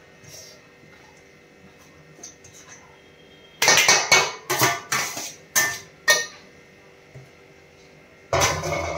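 Steel slotted spoon scraping and knocking against a steel plate and a metal pot as cooked rice is pushed off into the pot: a quick run of five or six sharp clinks and scrapes starting a little over a third of the way in, then another clatter near the end.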